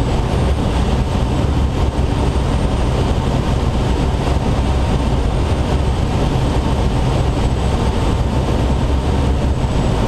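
Steady rush of air and low wind rumble in the cockpit of a Schweizer SGS 2-33A glider flying on tow behind a towplane.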